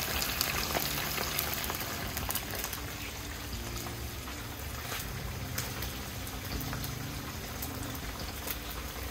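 Floured tilapia pieces deep-frying in a large pot of hot oil: a steady bubbling sizzle with scattered small crackles.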